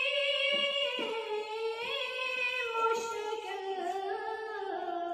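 A boy singing a naat, an Islamic devotional song, unaccompanied into a microphone. He holds long notes with ornamented turns, and the melody sinks slowly toward the end of the phrase.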